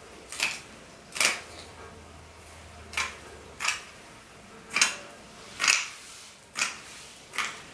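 Scissors snipping through sequined fabric along a paper pattern: about eight short, sharp cuts at uneven intervals.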